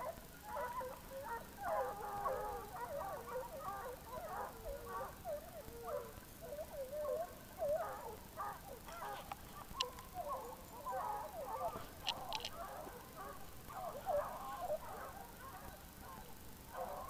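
A pack of hunting hounds baying, a continuous chorus of overlapping yelps that rise and fall in pitch: the dogs giving tongue as they run game in a boar drive. A few faint clicks come through about halfway.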